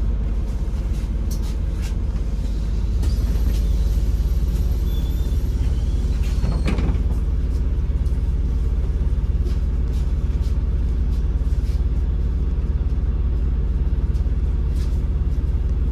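Inside a MAZ-203 low-floor city bus under way: the engine and road rumble run steadily low.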